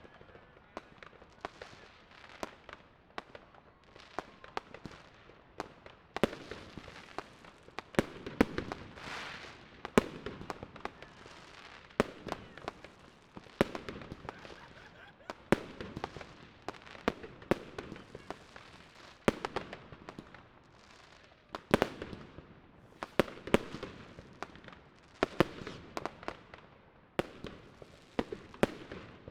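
New Year's Eve fireworks and firecrackers going off all around: dozens of sharp bangs at irregular intervals, with crackling and a trailing rumble between them.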